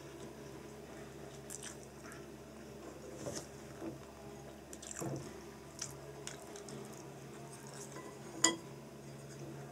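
Chopsticks clicking lightly against a porcelain bowl while lifting a pickled plum from its brine, with faint wet dripping sounds. There are a few scattered taps, and a sharper click near the end. A low steady hum runs underneath.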